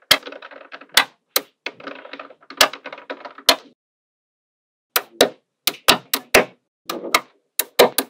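Small magnetic balls snapping onto a block of magnetic balls with sharp clicks, with a light clattering rattle of balls against each other between the snaps. After a pause of about a second near the middle, a quicker run of separate clicks follows.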